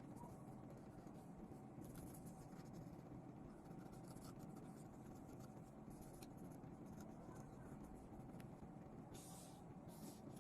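Near silence: low room hum with faint, intermittent light scratching, a little denser about nine seconds in.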